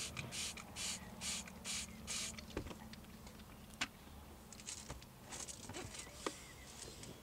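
Trigger spray bottle squirting water onto a car pedal to rinse off cleaner: about five quick, evenly spaced sprays in the first two seconds, each a short hiss, then a few faint clicks.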